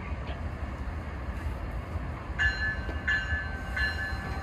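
Locomotive running with a steady low rumble; about two and a half seconds in, its bell starts ringing with evenly spaced strokes, about one every three-quarters of a second.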